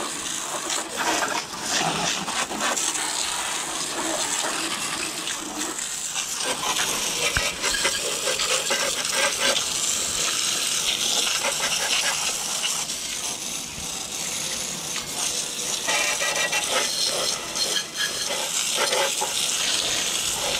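Garden hose with a spray nozzle on jet setting, water spattering steadily onto a lawn tractor's engine, its strength rising and falling as the jet moves: rinsing off degreaser.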